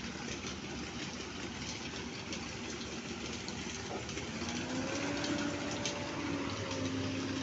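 SANY excavator running with a steady rushing noise; about four seconds in, the engine pitch rises and holds as it takes on load.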